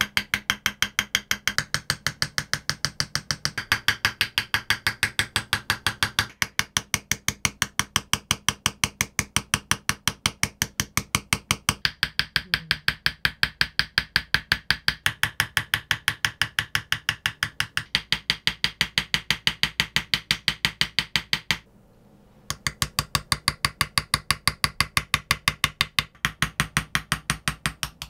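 Small hand hammer tapping a steel engraving chisel in a fast, even rhythm, about five or six taps a second, as it cuts a design into a kitchen knife blade laid on a wooden block. The tapping breaks off briefly about three-quarters of the way through, then resumes.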